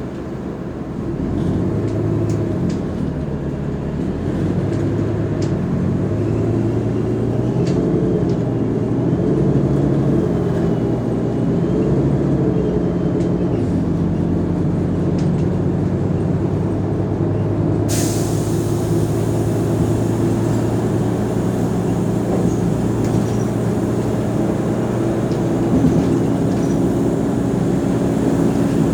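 Mercedes-Benz O345 Conecto G articulated bus's diesel engine running under way, its pitch rising and falling for a while. About two-thirds of the way in a sudden hiss starts and stays over the engine sound.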